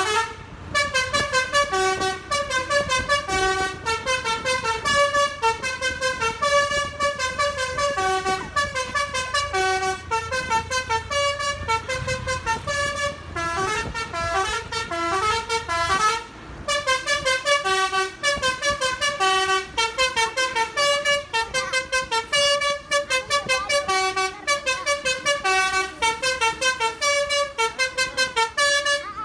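Basuri V3 'telolet' multi-tone musical horn playing a fast tune of short, shifting notes, with a brief pause about halfway through.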